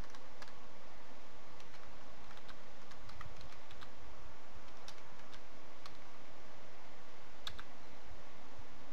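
Computer keyboard being typed on: scattered, irregular keystroke clicks over a steady background hiss.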